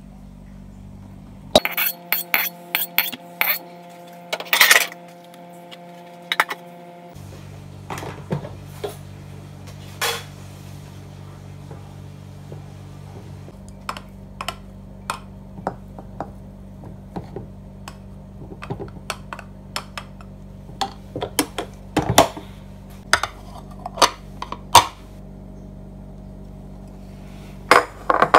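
Kitchenware clinking and knocking: a rice paddle and cup tapping against a rice cooker pot and dishes, in many short separate clinks and taps over a low steady hum.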